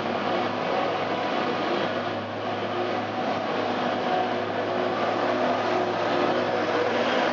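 Stadler GTW 2/6 diesel-electric railcar running along the platform and past at close range: a steady engine drone with several held tones, over the rumble of wheels on the rails.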